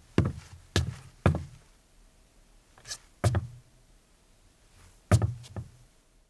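Footsteps of a man in sneakers on a deck: dull thuds at an uneven pace, three steps in quick succession, a light scuff and a single step, a pause, then two more steps near the end.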